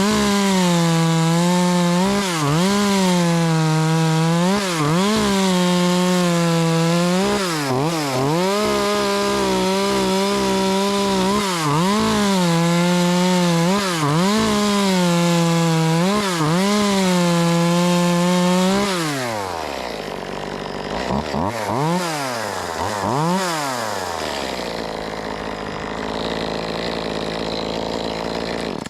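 Echo 2511T 25cc two-stroke top-handle chainsaw at full throttle cutting wood, its revs dipping and recovering again and again as the chain bites. About two-thirds of the way through, the throttle is released and the revs fall. There are a few short revs, then it settles to idle.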